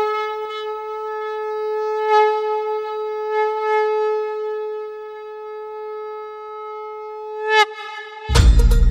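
Conch shell (shankh) blown in one long, steady note for about seven and a half seconds, dipping in pitch and breaking off near the end, followed by a short, weaker tail.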